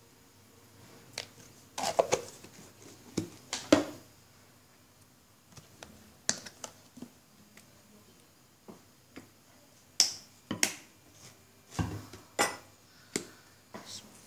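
Sharp clicks and taps from handling kitchenware over a ceramic bowl: spoons, plastic tub lids and sauce bottles set down and opened. About a dozen of them, singly and in pairs, with quiet stretches between.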